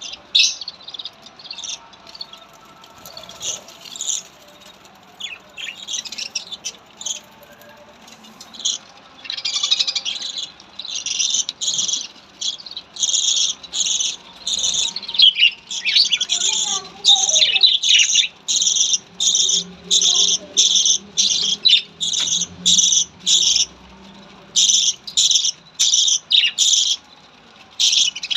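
Pet budgerigars chirping: scattered high chirps at first, then from about ten seconds in a steady run of short, repeated chirps, about two a second.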